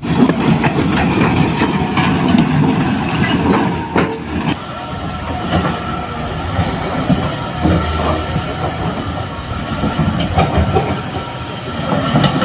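Toy radio-controlled excavator's small electric motors and plastic gears running, with a continuous rattling clatter.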